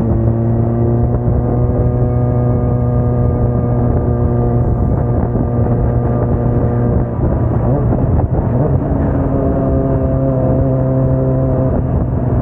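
Kawasaki sport motorcycle engine running at steady cruising revs. About seven seconds in the engine note dips and slides in pitch, then holds steady again at a slightly different pitch.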